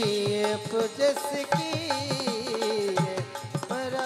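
Live Rajasthani bhajan music: a pitched melody line that holds and slides between notes, over a quick run of hand-drum strokes.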